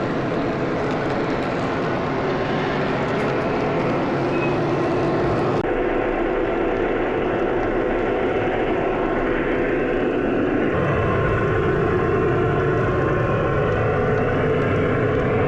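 O-scale model train running on three-rail track: a steady drone of motor and wheels. Its tone shifts about six seconds in and again near eleven seconds.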